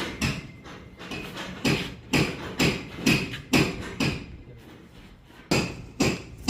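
Hammer blows in a steady rhythm, about two a second, with a pause of about a second and a half past the middle before the blows resume.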